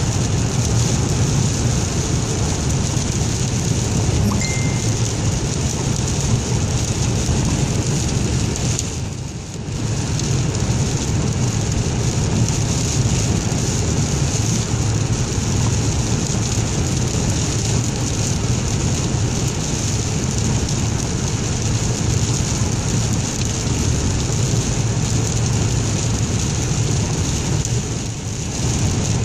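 Steady noise inside a car driving on a wet, icy highway: tyres hissing on the wet road over a low cabin rumble. It dips briefly about a third of the way in and again near the end.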